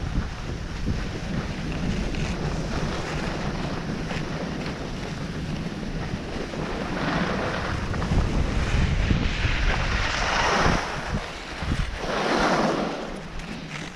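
Wind rushing over a moving camera's microphone during a downhill ski run, a steady low buffeting, with the hiss of skis sliding on groomed snow that swells several times, loudest about 10 and 12 seconds in.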